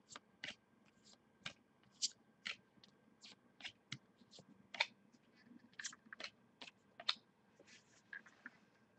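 Trading cards being handled and flipped through one by one: faint, short, sharp clicks and snaps at an irregular pace of about one or two a second.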